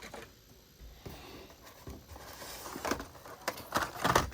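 Cardboard-and-plastic blister packs of Hot Wheels die-cast cars being handled and shuffled, a soft rustling with several sharp clicks and knocks in the second half.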